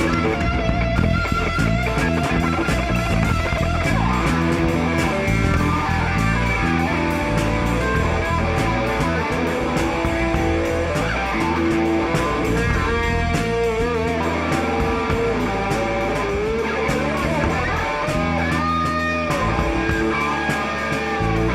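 Rock band playing live: electric guitar with bass and drums in a steady beat, with no singing.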